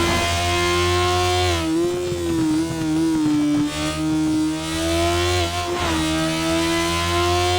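Motorcycle engine running hard at a steady high pitch under way. Its note sags and wavers for a couple of seconds about two seconds in, then dips briefly again near the end before it holds steady.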